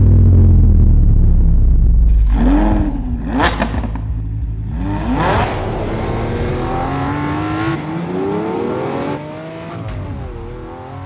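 An engine revving: a loud, deep rumble at first, then several revs rising and falling in pitch, fading toward the end.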